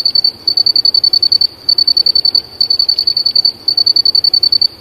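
Cricket singing: high-pitched chirps of rapid pulses, each about a second long with a brief pause between, repeating steadily about five times.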